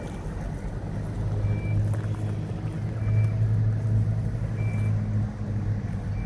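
Heavy diesel machine engine running, its low hum swelling about a second in, with a short high warning beep repeating about every second and a half, like a reversing alarm.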